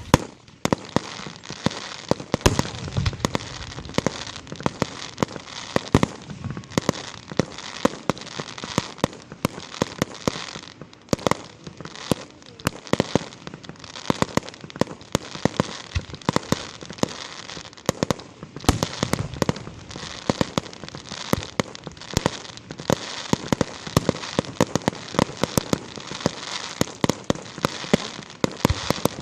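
Fireworks going off in rapid succession: a dense, continuous run of sharp crackling bangs, with deeper booms now and then.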